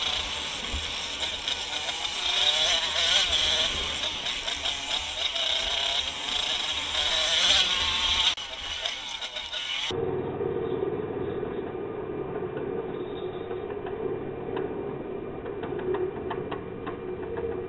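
Off-road motorcycle engines running on a trail, revs rising and falling. About ten seconds in the sound cuts abruptly to a muffled, steady drone.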